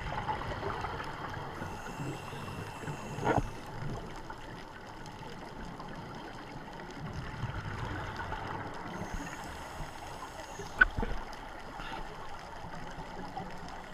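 Muffled underwater ambience heard through a camera's waterproof housing, swelling and easing with a scuba diver's breathing and exhaled bubbles. A faint hiss comes twice, and a single sharp click sounds about eleven seconds in.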